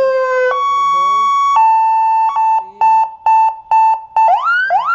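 100W seven-tone electronic car siren sounding through its horn speaker, switched from tone to tone: a slowly falling tone ends about half a second in, a steady tone follows, then a beeping tone pulsing about four to five times a second, and near the end a fast repeating rising yelp of about two and a half sweeps a second.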